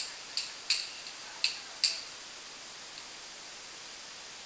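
A few scattered hand claps from the congregation, five sharp claps at uneven spacing in the first two seconds.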